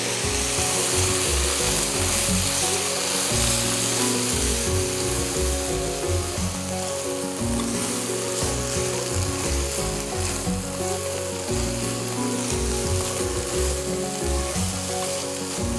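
Stir-fry of beef strips and sliced peppers sizzling steadily in a frying pan while it is tossed with cooking chopsticks, the seasoning sauce just added, with background music underneath.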